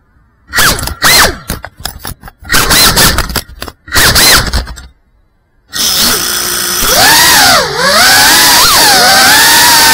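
FPV drone's brushless motors firing in a string of short, loud bursts while the upside-down quad struggles against the ground to flip itself over after a crash. After a short pause it spins up into a steady high whine, the pitch rising and falling with the throttle as it flies off.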